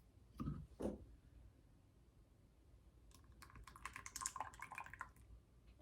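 Faint run of quick small clicks and crackles lasting about two seconds past the middle, after two soft thuds in the first second.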